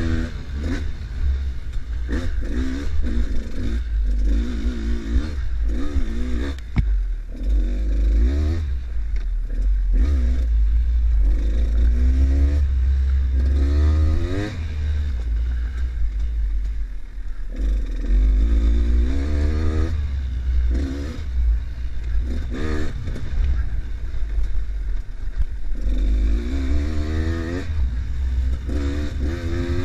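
Enduro motorcycle engine being ridden hard on a dirt trail, its pitch rising and falling over and over as the rider opens and closes the throttle, with a steady low rumble underneath.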